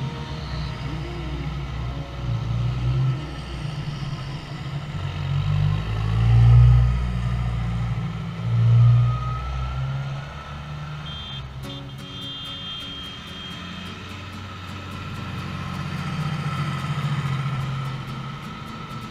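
Diesel engines of large farm tractors driving past one after another in a procession, a steady low rumble. The two loudest passes come about six and nine seconds in. Then it drops to a quieter stretch as the next tractor comes up, swelling again near the end.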